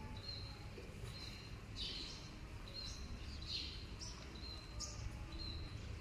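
A bird calling over and over, each call a short high steady note followed by a quick falling chirp, about once a second, against a faint low hum.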